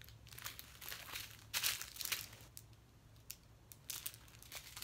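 Small plastic zip bags of diamond painting drills crinkling and rustling as a hand rummages through a pile of them, in irregular handling noises with a few sharper crackles.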